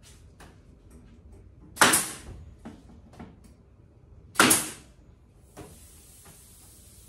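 Staple gun fired twice, about two and a half seconds apart, each shot a sharp bang with a short ring as it drives a staple through the aluminum roof skin into the camper's wooden framing. A few faint clicks come between the shots, and a faint high hiss starts near the end.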